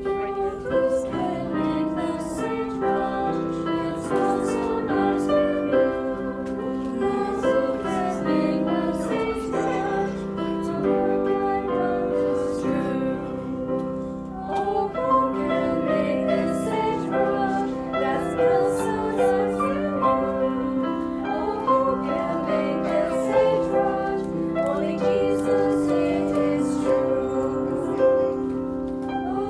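A children's song played on piano with a woman singing along.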